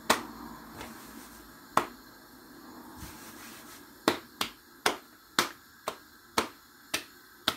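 Sharp slaps of hands on the worktop while working chapati dough in flour: one at the start, one just before two seconds in, then a steady run of about two a second from four seconds on.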